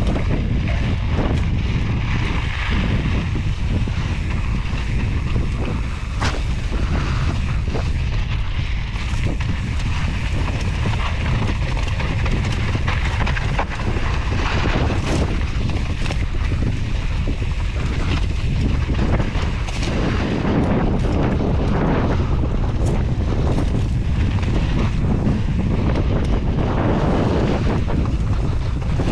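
Wind rushing over a GoPro's microphone during a fast mountain bike descent, a steady heavy rumble, with tyres rolling over dirt and frequent clicks and rattles from the bike over rough trail.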